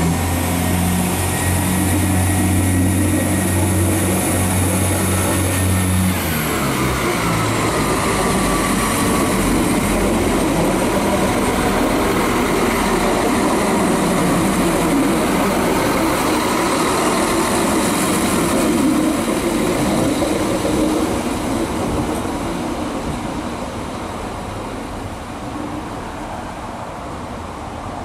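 Iarnród Éireann 22000 Class InterCity Railcar, a diesel multiple unit, moving past with its underfloor diesel engines running: a steady low drone that drops in pitch about six seconds in, followed by a falling whine and rolling wheel and track noise. The sound fades over the last several seconds as the train moves away.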